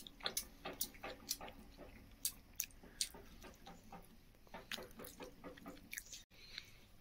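Quiet chewing of siddu, a steamed stuffed bread: a run of small, irregular clicks and smacks.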